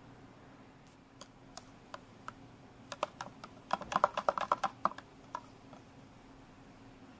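Metal spoon stirring a protein shake in a plastic shaker cup, clicking against the cup's wall: a few scattered clicks, then a quick run of clicks in the middle.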